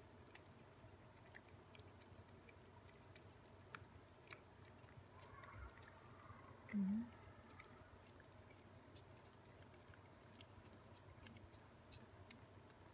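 Ragdoll cats licking a lickable puree treat from a squeeze tube: faint, quick wet licks and mouth clicks throughout, with one brief low voice-like hum about seven seconds in.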